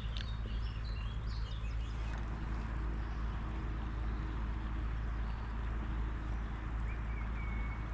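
Steady rush of river water with a low rumble of wind on the microphone. A few short high bird chirps come in the first two seconds, and a brief thin whistle near the end.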